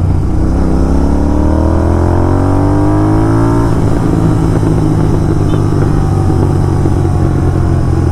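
Royal Enfield GT650's 648cc parallel-twin engine revving up under acceleration for about three and a half seconds, then the throttle snaps shut and the engine falls back to a lower, steady note. This is the rev-and-release move meant to draw exhaust crackles on overrun from the stock ECU.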